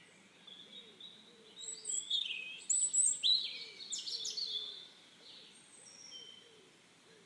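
Birds chirping, a cluster of short high chirps and whistles that starts about a second and a half in and dies away about five seconds in.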